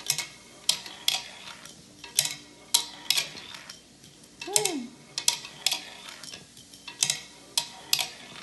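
Small toy cars clacking against a wooden zig-zag ramp racer: a string of sharp, irregular clacks, roughly one every half second.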